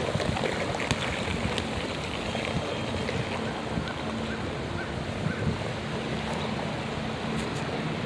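Steady rushing outdoor noise with a faint, steady low hum underneath and a few light knocks.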